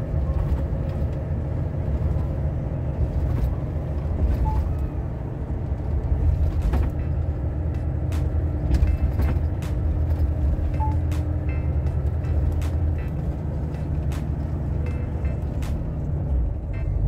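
Heavy truck's diesel engine running steadily while driving, heard from inside the cab, with scattered light clicks and rattles.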